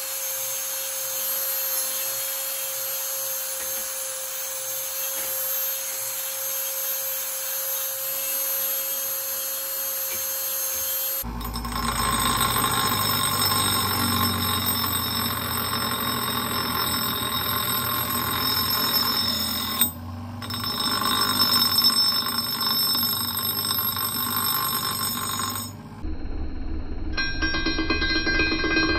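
Power grinders running against the steel head of an old splitting maul, stripping rust and grinding a new edge profile. Sparks fly from the grinding wheel. The sound changes abruptly about eleven seconds in and again near the end.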